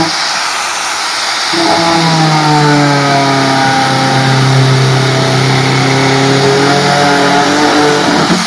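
Handheld electric power tool's motor starting up about a second and a half in and running steadily for several seconds, its pitch sinking a little under load, cutting an outlet hole in a plastic water tank; it stops near the end.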